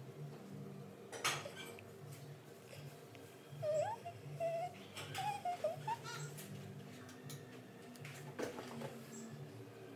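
A high, wavering cry-like sound for about two seconds a few seconds in, over a low steady hum, with a couple of soft knocks.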